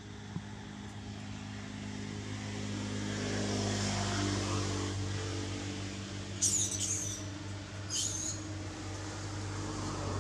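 A vehicle engine running with a steady low hum that swells as it comes nearer and then slowly fades. Two brief high-pitched chirps come through about six and a half and eight seconds in.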